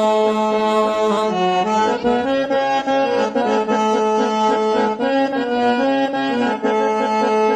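Instrumental break in a devotional song: a free-reed keyboard instrument plays a stepping melody over a steady held drone.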